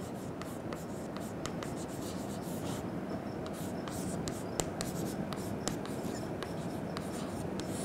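Chalk writing on a chalkboard: a run of short scratches and taps as letters are stroked out, with one sharper tap about halfway through, over a steady background hiss.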